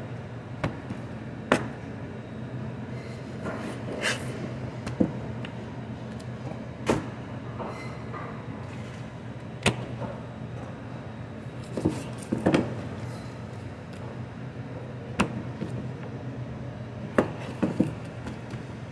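A butcher's knife knocking on a plastic cutting board as fat is trimmed from raw strip steaks, and the steaks being set down and handled: about a dozen short sharp knocks at irregular intervals, over a steady low hum.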